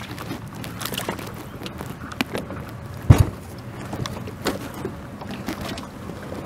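Clicks and knocks of handling in a fishing boat while a caught bass is held and unhooked, with one loud low thump about three seconds in. A faint steady low hum runs underneath.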